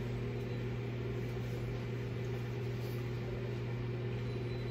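A steady low mechanical hum with a few even tones above it, unchanging throughout.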